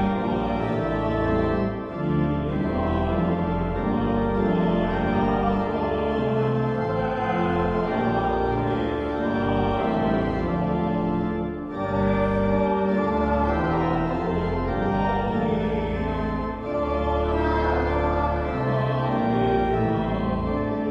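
Church organ playing held chords, in phrases broken by short pauses about two, twelve and seventeen seconds in.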